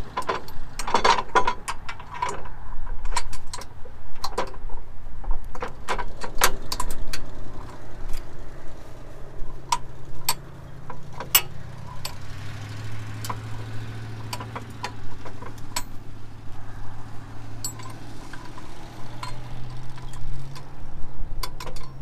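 Metal clinks and clicks of the steel pin and red safety brace on a Cat 265 compact track loader's lift arm as the brace is pinned back up in its stowed position. Underneath is a low steady hum of the machine running.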